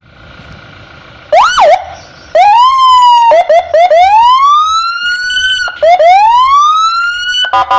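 Electronic siren sounding: a quick whoop, then long wails that rise in pitch, broken by short quick chirps, changing to a rapid pulsing warble near the end.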